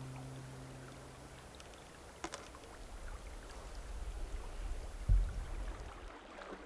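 Brook water running steadily, with a low rumble and a dull thump about five seconds in.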